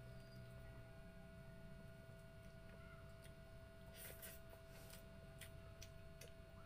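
Near silence: faint clicks and smacks of someone eating by hand, with a few sharper clicks about four seconds in, over a faint steady hum.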